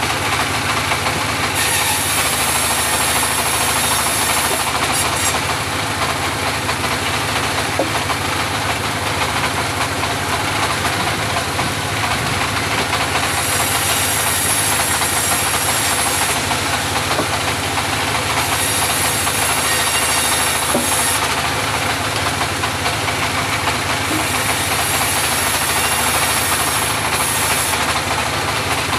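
Engine-driven homemade portable bandsaw mill running steadily, with a high hissing sound that comes and goes every few seconds.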